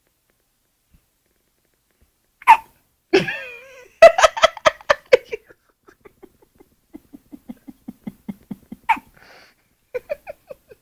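A newborn baby hiccuping twice, one short sharp hic about two and a half seconds in and another near the end. Between them someone laughs in a quick run of "ha" pulses that grow softer and lower, then starts again just before the end.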